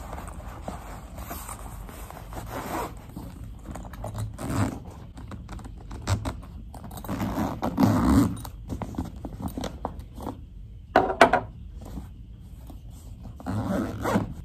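A fabric backpack being handled and zipped close by: zipper pulls and the rustle and scrape of the bag and its contents come in irregular bursts, the loudest a brief double rasp about eleven seconds in.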